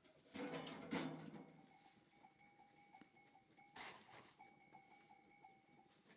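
A goat or sheep bleats once, lasting about a second and a half, starting about half a second in; a faint steady ringing tone carries on after it.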